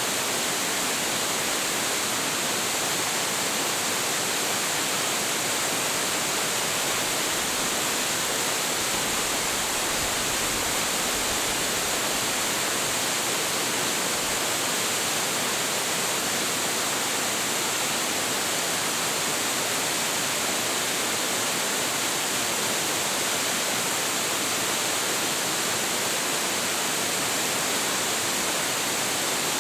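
A 25.7 m waterfall with heavy flow pouring steadily: an even, unbroken rush of falling water with a strong hiss.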